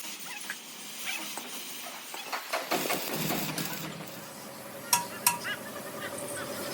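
Metal-on-metal workshop sounds: scattered light clinks, then two sharp metallic strikes about half a second apart near the end, each ringing briefly.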